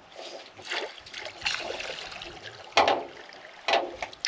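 Water splashing and sloshing beside a boat, with two sharp, loud splashes about three and nearly four seconds in.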